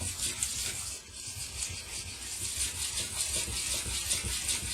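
Steel knife blade being ground by hand on a 1000-grit water stone: rapid, even back-and-forth strokes of metal scraping on the wet stone, grinding out chips in the edge.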